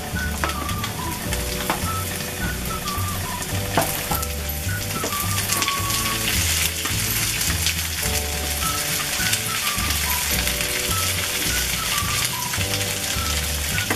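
Potatoes, onions and freshly added green bell pepper pieces sizzling in hot mustard oil in a kadhai, stirred with a spatula that clicks against the pan now and then. A soft background melody plays under the sizzle.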